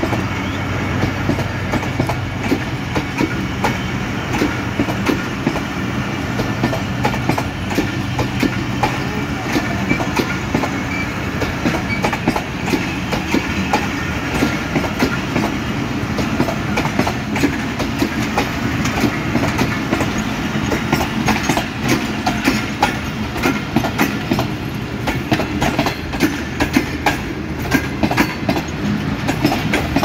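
Pakistan Railways passenger coaches rolling past close by. The wheels clatter over the rail joints over a steady rumble, and the clicks come thicker in the second half.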